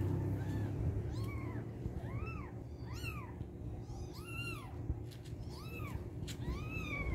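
Newborn kitten mewing: a run of about eight short, high cries, each rising and falling in pitch, roughly one a second, over a low steady background rumble.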